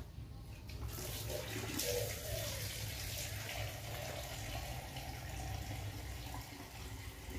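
Soapy water sloshing and trickling in a basin as a hand dips and works in it, a steady watery hiss.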